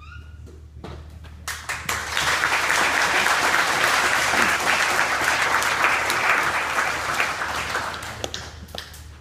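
Audience applauding: a few scattered claps about a second and a half in swell into full applause, which dies away near the end.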